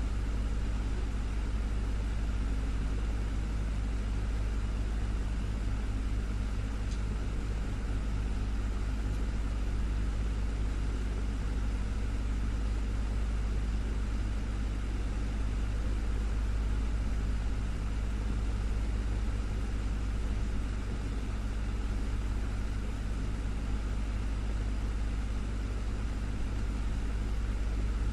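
Desktop fan running steadily: a constant low motor hum under an even rush of air.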